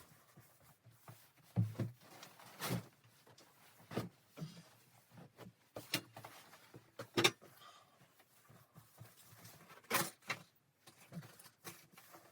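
Irregular knocks and clunks, spaced a second or two apart, of things being handled in a small room.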